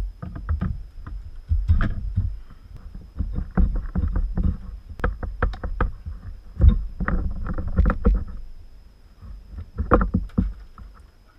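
Irregular clicks, clunks and low knocks as hands work the radiator outlet hose and its plastic fittings free between the radiator and the engine of a BMW E46. The sharpest knocks fall around the middle.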